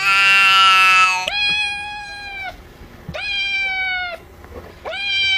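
Domestic cat meowing: four long, drawn-out meows in a row with short pauses between them, the first the longest and loudest.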